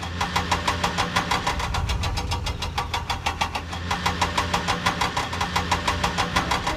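Cartoon vehicle engine sound effect: a motor chugging with rapid, evenly spaced pulses over a steady low hum.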